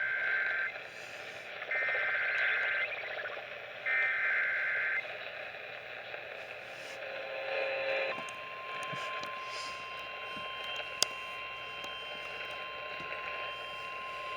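Emergency Alert System SAME header heard over a radio: three buzzy one-second bursts of data tones about two seconds apart. About eight seconds in a single steady alert tone starts and holds: the NOAA Weather Radio warning alarm tone that comes before a severe thunderstorm warning.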